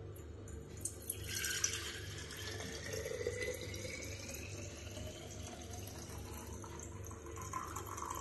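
Kanji, a thin spiced mustard water, poured in a steady stream from a steel bowl into a glass jar. The pouring starts about a second in, and its note rises slowly in pitch as the jar fills.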